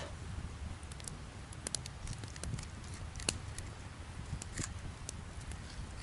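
Campfire crackling, with scattered sharp pops at irregular intervals.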